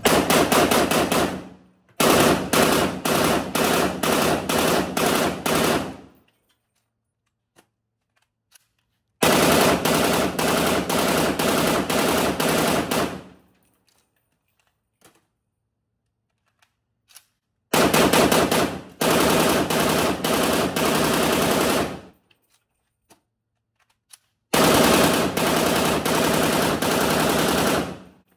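POF CW39 rifle firing on full auto: six bursts, most of them two to four seconds long, with pauses of a few seconds between them.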